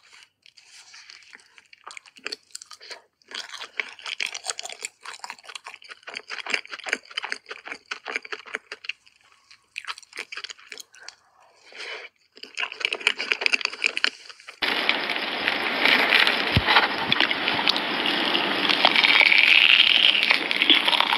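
Close-miked mouth sounds of eating crepe cake: wet chewing and small irregular clicks and smacks, in uneven clusters. About three-quarters of the way through, the sound cuts abruptly to a louder, steady rushing noise.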